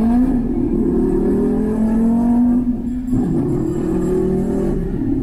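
Teenage boy imitating a sports car engine with his voice into a microphone. A rising engine note is held for nearly three seconds, breaks off briefly, then rises and holds again like a second rev.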